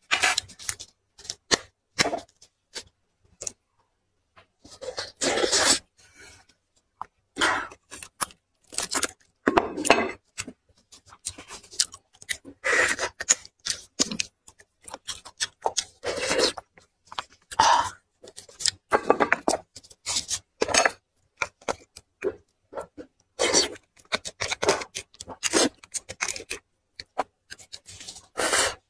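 Close-miked eating sounds from braised marrow bones and meat: pulled apart by gloved hands, bitten and chewed, in many short irregular wet smacks and tearing noises.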